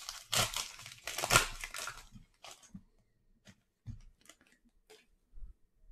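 Foil wrapper of a trading-card pack torn open: a loud crinkly rip over the first two seconds, then a few short, quieter rustles and taps.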